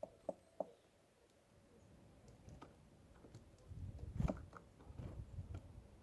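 Faint clicks and crunching: two sharp clicks in the first second, then a low rumble with scattered clicks in the second half, loudest just past the middle.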